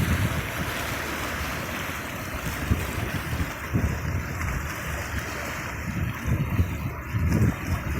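Sea waves washing steadily, with wind gusting on the microphone in irregular low rumbles.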